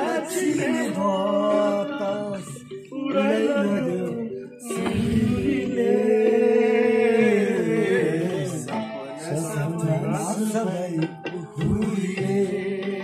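Music with a voice singing a melody, holding one long note midway through.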